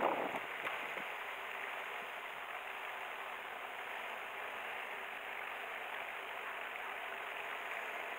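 Steady rushing hiss of an RC fishing boat running on the water, with no clear motor tone.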